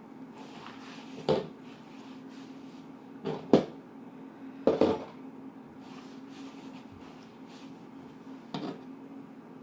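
Handling sounds: a few short knocks and clicks, the loudest about three and a half seconds in, over a steady low hum.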